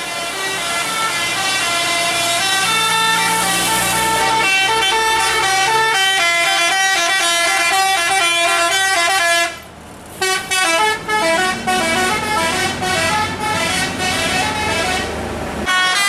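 Tour bus 'telolet basuri' multi-tone musical horn playing a fast melody of stepped notes. It breaks off for a moment just before the middle, then comes back in short, choppy notes.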